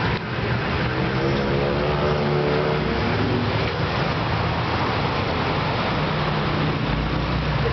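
Steady road traffic noise, with one vehicle's engine hum standing out for a couple of seconds about a second and a half in, and a deeper rumble near the end.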